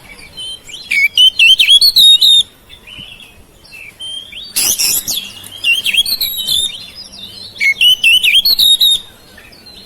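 Oriental magpie-robin (kacer) singing three bursts of rapid, varied whistles and chattering notes, with short pauses between them.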